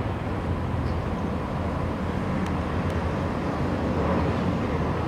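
Dodge Serra Boulevard 3700 GT's straight-six engine running at a steady idle, with no revving.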